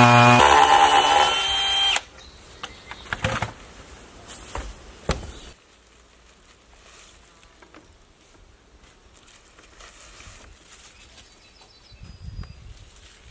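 Background music that stops abruptly about two seconds in, followed by a few scattered knocks and taps, then faint background noise.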